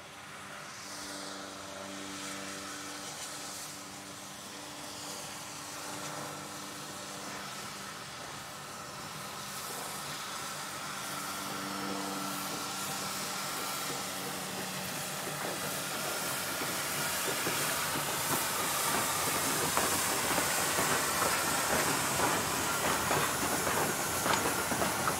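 NM-class steam locomotive NM 25 drawing a train of old passenger carriages, its steam hissing and growing steadily louder as it comes near. In the last third the carriages roll past, and their wheels clatter over the rail joints.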